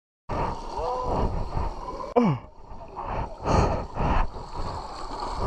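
Fast creek water rushing around a plastic kayak, with sudden knocks and scrapes as the boat and paddle hit branches, the sharpest about two seconds in. A couple of short grunts or gasps from the paddler break in.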